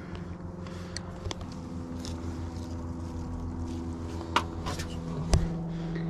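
A steady motor drone, like a distant engine, hums in the background. A few short clicks and rustles come through, the sharpest about four and a half and five and a half seconds in.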